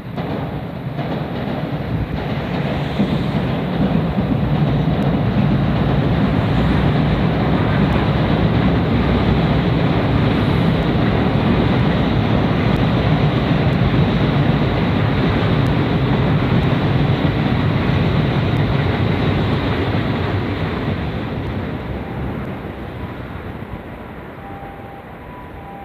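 A train passing on the rails, its wheel-and-rail noise building over the first few seconds, holding steady, then fading away over the last several seconds.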